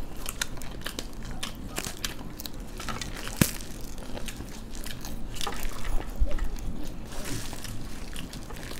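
People crunching and chewing mouthfuls of bhel puri, a dry snack of puffed rice and crisp sev. A string of small crisp crunches, with one sharper crack about three and a half seconds in.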